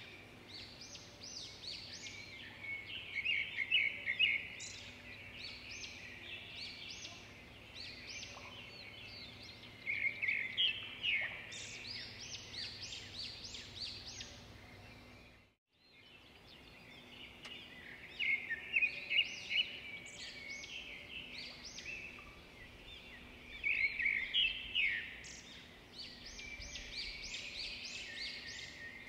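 Birds chirping and twittering in repeated bursts of short high notes, over a faint steady low hum. The sound cuts out for a moment about halfway through.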